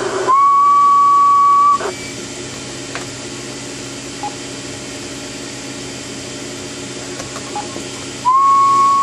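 A person whistling one steady high note for about a second and a half, sliding up into it at the start. A steady low hum and hiss follow, and a second whistle of the same pitch starts near the end.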